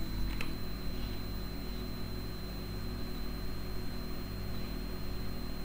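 Steady low electrical hum under an even hiss, with a thin high-pitched whine. This is the background noise of the recording setup. A couple of faint clicks come just after the start.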